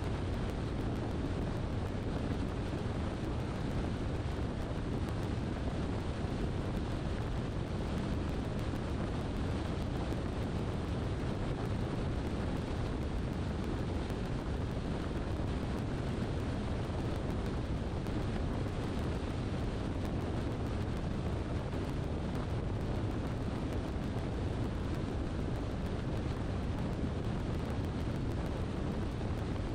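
Car driving at a steady pace: a steady low rumble of road and wind noise.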